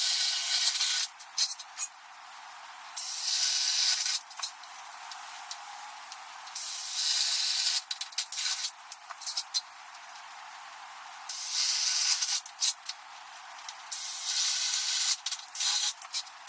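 Cordless drill boring holes into a 2x6 board, in five short bursts of about a second each, each followed by a few clicks and rattles.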